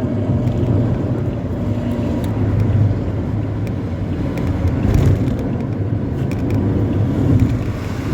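Intercity bus running hard at speed with its modified 'ngorok' (snoring) exhaust: a steady low rumble.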